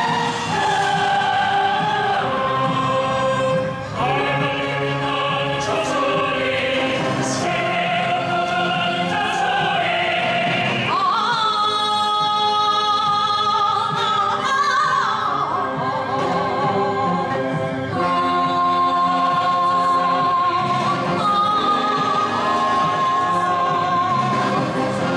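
Live concert performance of a Korean–Western fusion piece: solo singing, with long held notes and vibrato, over a choir and a military band. A high note is held for a few seconds about halfway through.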